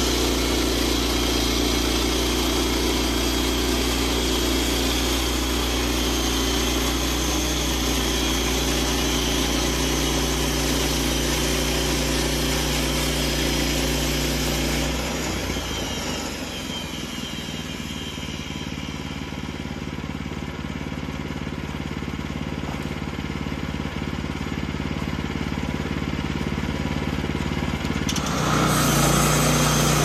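Portable band sawmill running on its Kohler engine: a steady engine drone that drops in level and changes note about halfway. It then grows slowly and jumps louder near the end as the band blade cuts through a pine log.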